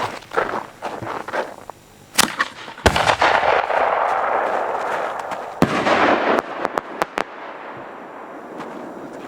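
Fireworks going off. There is a sharp bang about two seconds in and a louder one just before three seconds, followed by a hissing rush lasting a few seconds. Another bang comes near six seconds, then a quick run of small cracks.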